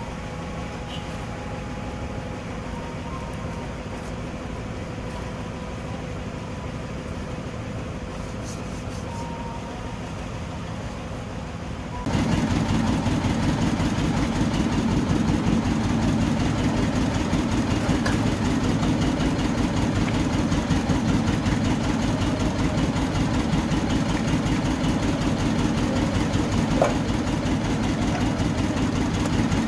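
Toyota 2TR four-cylinder petrol engine idling steadily. About twelve seconds in, the sound steps abruptly louder and fuller, then runs on evenly.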